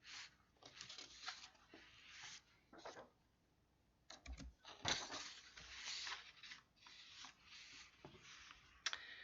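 Near silence with faint, scattered rustling noises.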